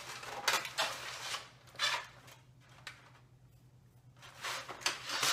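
Cardboard box and clear plastic packaging of a boxed chocolate bunny being handled and rustled, in several short bursts, with a quieter pause in the middle.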